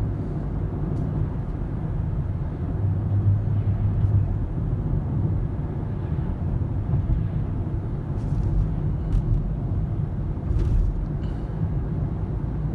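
Steady low rumble of road and engine noise heard inside a moving car's cabin, with a few light ticks in the second half.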